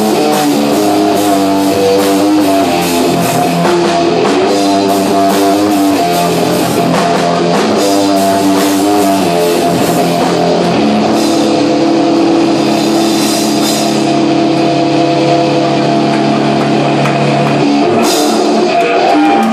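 Live rock band playing: electric guitar chords over a drum kit with steady cymbal strokes, moving into a long held chord about halfway through and a final hit near the end as the song closes.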